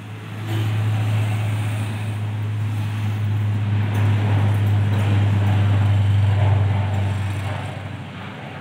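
Turboprop airliner taking off, its engines and propellers giving a steady low drone at takeoff power. The drone swells about half a second in and fades near the end.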